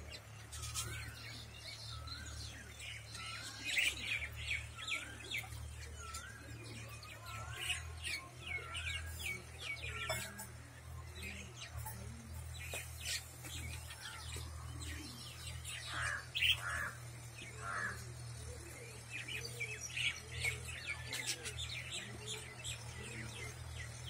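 A flock of budgerigars chattering and chirping, with many short, quick calls overlapping throughout, over a steady low hum.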